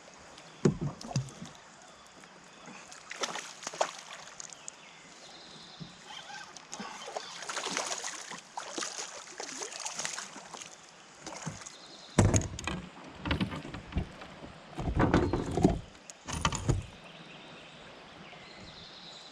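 Kayak paddling: paddle strokes sloshing and splashing in the water. In the second half come several loud, low thumps and rumbles.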